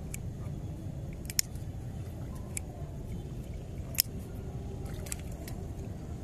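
A lighter clicked about five times, sharp clicks roughly a second apart, the loudest about four seconds in, over a steady low rumble.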